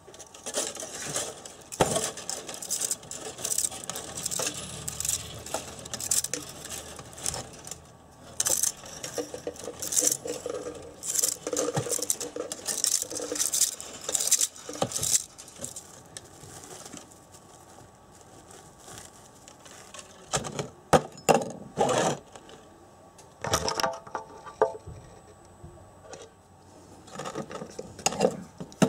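Old copper field-coil wire being pulled and stripped by hand out of the steel shell of a Honda CB650 alternator rotor: irregular scratching and rustling with light metallic clinks. It goes quieter for a few seconds past the middle, then a few sharp knocks follow near the end.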